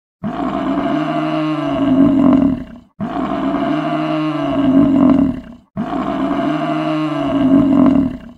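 Buffalo calling: one drawn-out, deep, bellowing call repeated three times in identical copies. Each call lasts about two and a half seconds, with short gaps between them.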